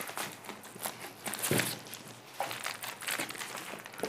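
Crinkling and rustling of plastic-wrapped garment packs and a cardboard box being handled and opened, in irregular bursts, with a louder knock about one and a half seconds in.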